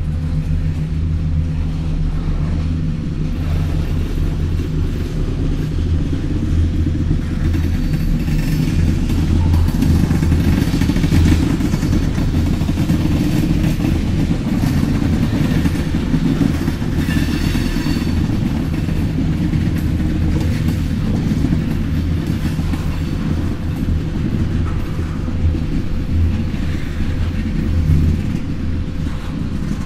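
Freight train of tank cars rolling past at close range: a steady, loud low rumble of wheels on rail, with brief high-pitched squeals about a third of the way in and just past halfway.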